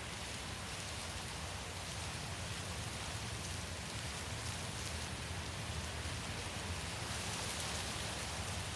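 Steady wind noise: a low rumble under a broad high hiss, swelling slightly louder over the seconds.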